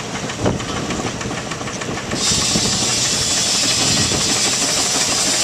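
Steam traction engine running, with one sharp knock about half a second in; about two seconds in, a loud steady hiss of steam venting from the top of the boiler starts and keeps on.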